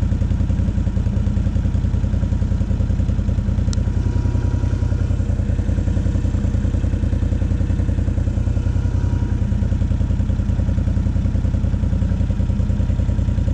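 Can-Am Renegade 800 ATV's V-twin engine idling steadily while the machine stands still.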